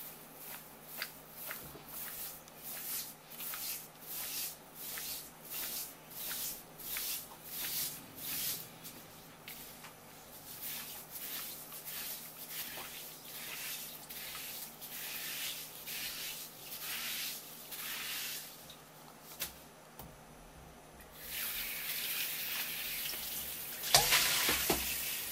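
A wadded stainless-steel scrubber rasping back and forth along a pike conger's wet skin on a wooden cutting board, about two strokes a second, scouring off the slime. Near the end the scraping gives way to a steady hiss, with one loud sudden noise.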